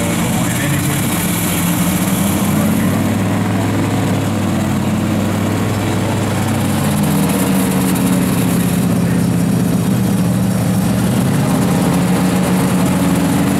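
Heavy off-road truck engines running, a low steady drone that shifts slightly in pitch a few times.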